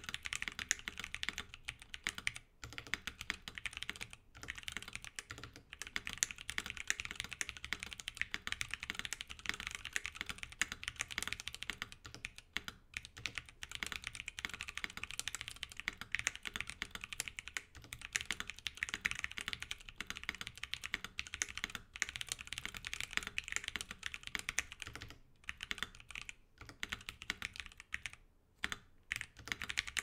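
Fast typing on a KBDFans D65 gasket-mount 65% keyboard with stock, unlubed Durock T1 tactile switches, a polycarbonate plate, case foam and PBT keycaps: a dense, continuous clatter of keystrokes. It breaks off in a few short pauses, most of them in the last few seconds.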